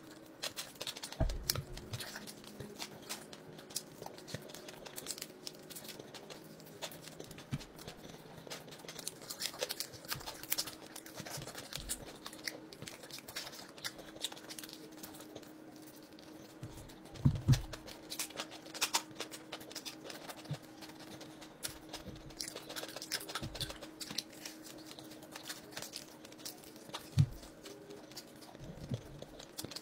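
A man eating fried fish with his fingers: chewing, small crunches and the tearing of the fish as he picks it apart, with a few louder thumps.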